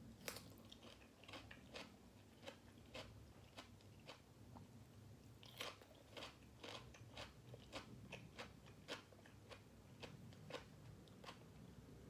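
Close-miked eating: a person chewing grilled pork balls with crisp raw vegetables, giving many sharp wet crunches throughout, bunched most densely about halfway through.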